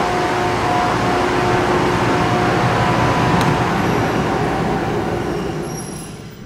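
Viet three-head 53-inch wide belt sander running empty, its sanding heads and conveyor making a loud, steady mechanical noise with a faint whine. About five seconds in it starts to wind down and fades away as the machine is shut off with its emergency stop.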